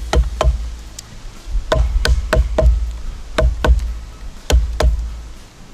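Wooden baton striking the spine of a pocket knife, driving the blade into a log: about a dozen sharp knocks in uneven clusters of two or three.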